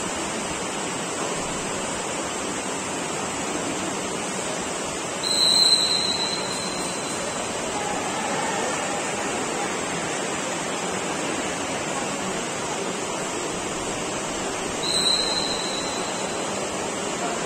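Two short blasts of a referee's whistle, one about five seconds in and one near the end, the calls that have the kata judges raise and then lower their decision flags. A steady hiss runs underneath.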